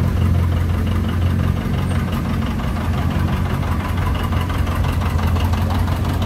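Antique John Deere tractor's engine running at low speed as the tractor drives past close by: a steady, low engine note with a regular pulsing beat.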